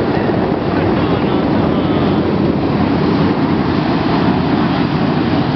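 Sprint car V8 racing engines running at speed on the track: a loud, steady roar.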